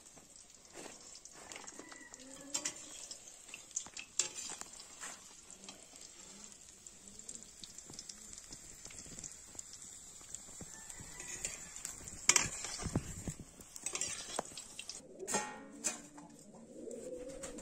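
Cauliflower florets frying in oil in an aluminium kadai with a faint steady sizzle. A metal slotted ladle scrapes and clicks against the pan and plate, with one sharp knock about twelve seconds in.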